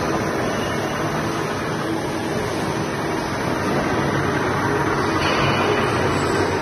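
Conical twin-screw extruder gearbox running, its helical gears meshing in oil, giving a steady mechanical drone that holds even throughout.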